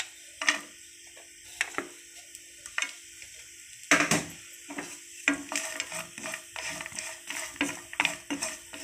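Coconut pieces frying in a little oil in a non-stick pan: a steady sizzle with scattered pops and crackles. Toward the end a wooden spatula stirs and scrapes the pieces, and the clicks come thicker.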